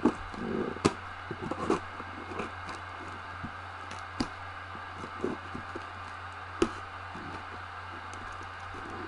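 Cardboard box being handled and cut at its packing tape: scattered knocks, taps and scrapes, a few of them sharp, over a steady hiss and low hum from the camera microphone.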